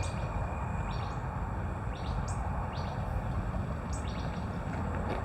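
Small birds calling: quick high chirps in short runs, about one run a second.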